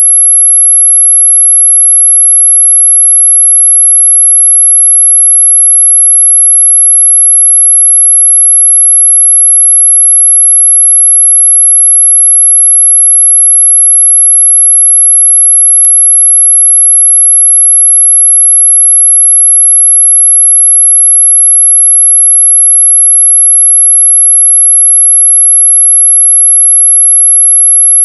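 A steady, loud, high-pitched sine tone, played as a mosquito-repellent sound, holding one pitch without a break. A single faint click comes about sixteen seconds in.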